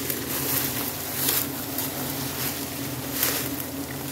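A mass of giant honeybees buzzing as a steady low hum, with short hissing rustles over it every second or so as the bees are brushed off the comb.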